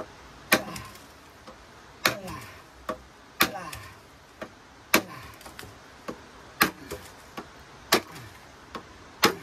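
A length of bamboo being chopped with a blade: about seven sharp strikes, roughly one every second and a half, with lighter taps in between.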